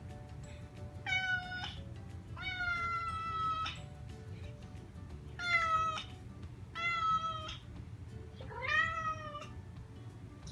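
A domestic cat meowing five times: drawn-out, fairly high, steady-pitched meows, the second one the longest and the last one rising and then falling in pitch. Faint background music plays underneath.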